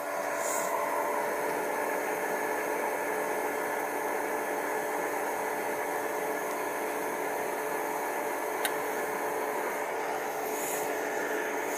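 Steady mechanical hum and whir with several held tones, coming up slightly as it starts and then holding level. One faint click about nine seconds in.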